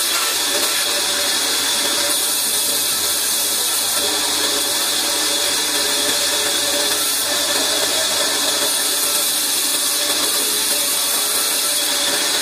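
Large vertical band saw running and cutting through a weathered wooden slab as it is fed along the table, a steady high hiss without a break.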